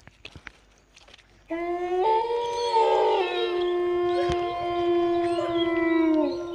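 Dogs howling together in long, drawn-out overlapping howls that start suddenly about a second and a half in, over faint ticking before that.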